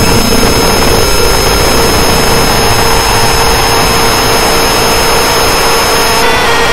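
Harsh noise / power electronics music: a loud, unbroken wall of distorted noise with a steady mid-pitched drone and several thin, steady high tones that jump to new pitches near the end.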